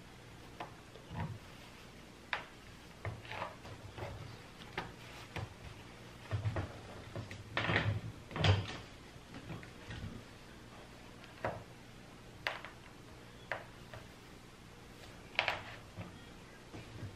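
Scattered light knocks, clicks and rustles of hands handling a canvas wig block on its stand while a mesh dome cap is pulled down over it and pinned in place, with a louder cluster of knocks about halfway through.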